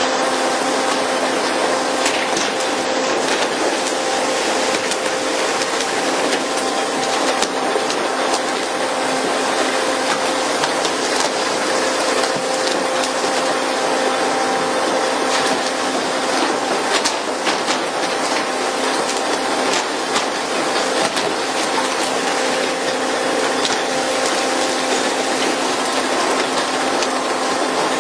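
Deck noise of a pole-and-line tuna fishing boat: a steady rush of water and wind over a constant machinery hum, with scattered sharp clicks and knocks.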